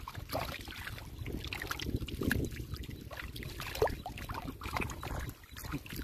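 Hands sloshing and groping through shallow muddy water, with irregular small splashes, as someone feels along the bottom for fish.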